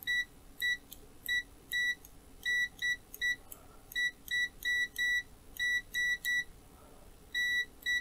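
Kaiweets HT118A multimeter's continuity beeper giving short, high-pitched beeps at an irregular pace, about sixteen in all, each time the test probe tips touch. The owner calls the continuity response kind of slow.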